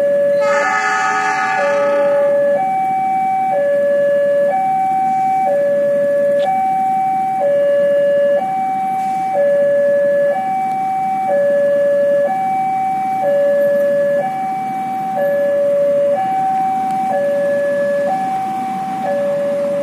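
Railway level-crossing warning alarm sounding a steady electronic two-tone signal, a lower and a higher tone alternating, each held about a second, warning of an approaching train. A short horn blast sounds about a second in.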